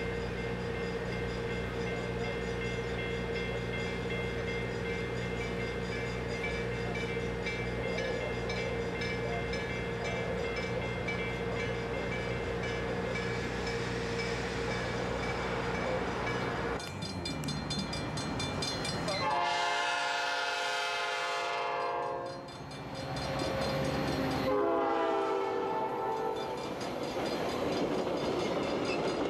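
Diesel train approaching, its engine running with a steady hum, then sounding its horn in two long blasts of about three seconds each, a few seconds apart.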